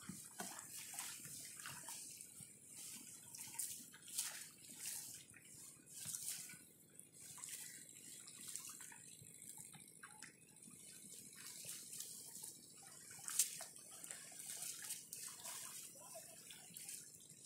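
Shallow water splashing and dripping as a fine-mesh fishing net is lifted and shaken in it: irregular small splashes, with one sharper splash about thirteen seconds in.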